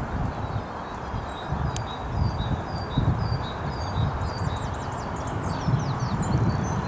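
Small songbirds singing: short high chirps repeat about twice a second, with a quicker flurry of notes a little past the middle. Under them runs an uneven, gusty low rumble of wind on the microphone.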